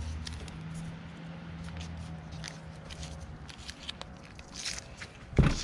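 Soft crackling and rustling as a roll of butyl tape and its paper backing are handled, with a thump near the end.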